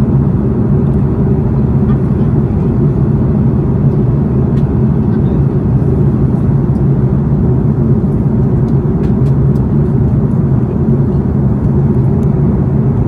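Steady low engine drone and rumble of a vehicle in motion, unchanging throughout, with a few faint ticks.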